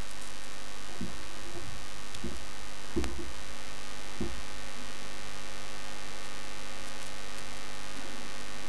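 Steady electrical mains hum in the microphone and recording chain, with a few faint soft knocks in the first half.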